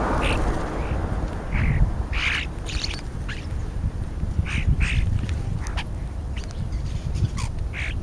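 A flock of European starlings feeding, giving many short, harsh squawks and chatter calls scattered through, over a steady low rumble.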